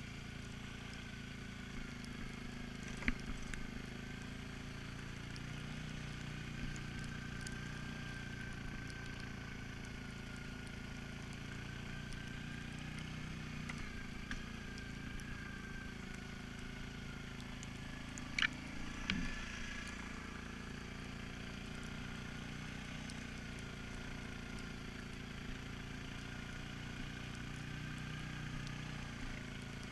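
Suzuki King Quad 750's single-cylinder engine running steadily at low speed as the tracked ATV crawls over snow, with a steady whine above it. Two sharp knocks, about three seconds in and again a little past halfway.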